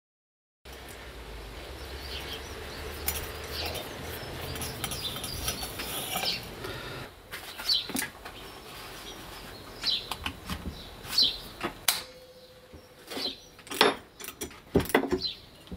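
Irregular sharp metallic clicks and clinks of hand tools working on the grinder's rotor: locking grip pliers clamping and a socket wrench on the locking nut, thickest in the second half. Faint bird chirps sound in the background.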